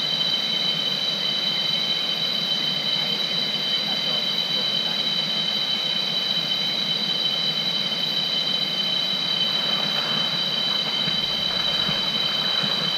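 A steady, high-pitched drone of rainforest insects, typical of cicadas, held at an even pitch over the steady rush of river water.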